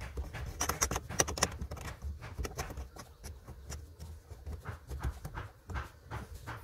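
Hand-handling sounds behind a plastic car dashboard panel: irregular clicks, knocks and rustling as a 12 V cigarette-lighter outlet is fitted and its locking piece secured. A few sharper clicks come in the first second and a half, then softer scattered clicks.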